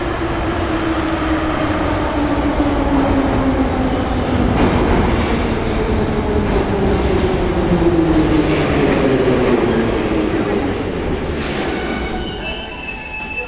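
Type 81-717.5 metro train arriving and braking to a stop: a loud rumble of wheels on rail, with the traction motors' whine falling slowly in pitch as the train slows. It grows quieter near the end as the train comes to rest.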